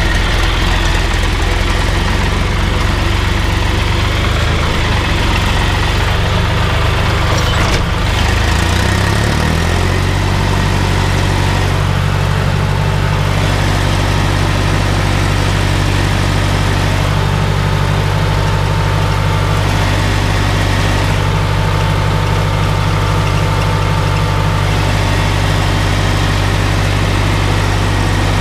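Old tractor's diesel engine running steadily under load, pulling a stubble plough, heard from the driver's seat. Its note shifts about nine seconds in, as the tractor comes out of the headland turn and the plough goes into work, and stays steady after that.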